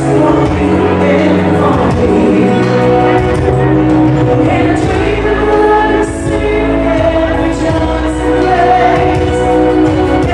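A woman singing live into a handheld microphone over backing music, holding long notes.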